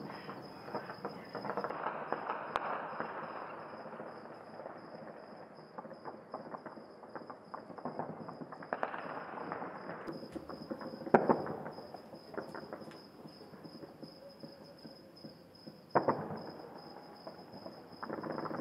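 Distant fireworks and celebratory gunfire crackling and popping, with two much louder sharp bangs, one a little past halfway and one near the end, each trailing off in an echo. Crickets chirr steadily throughout.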